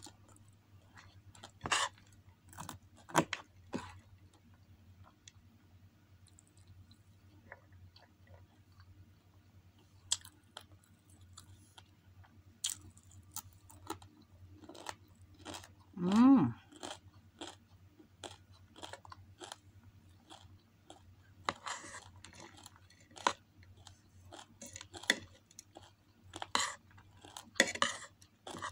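Close-up mouth sounds of eating: chewing and crunching chicken adobo, potatoes and rice with its crispy scorched crust (tutong), with scattered wet clicks and smacks. About halfway through there is a short hummed vocal sound, and a faint steady low hum runs underneath.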